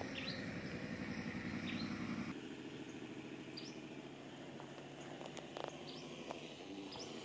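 An engine runs with a fast, even beat and cuts off suddenly about two seconds in. After that a bird repeats a short rising chirp every second or so over quiet outdoor background.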